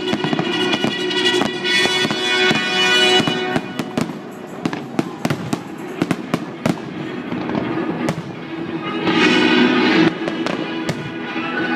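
Fireworks display going off in quick succession, a run of sharp bangs and cracks that is densest in the middle, over music playing along with the show.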